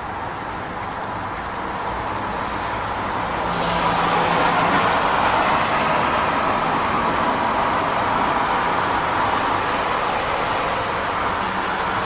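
Rainy city street ambience: a steady hiss of rain and traffic on wet pavement. A vehicle's tyre hiss and engine swell about four seconds in as it passes, then slowly fade back into the wash.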